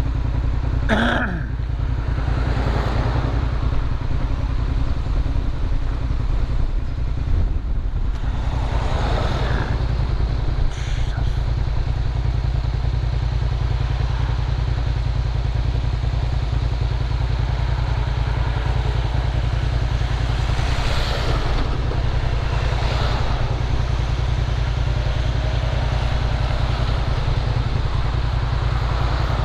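Motorcycle engine idling while stopped, under a heavy steady rumble of wind buffeting the helmet-mounted microphone. A few louder swells of noise rise and fade along the way.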